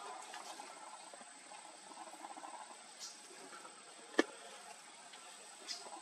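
Bulbuls bathing in a shallow forest stream: light splashing and patter of water, with a few sharp ticks, the loudest about four seconds in.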